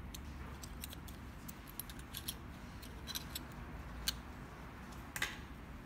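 Faint, scattered light clicks and ticks of small printer parts being handled while the end stop and stepper motor are taken off a 3D printer's extruder bracket, over a low steady hum.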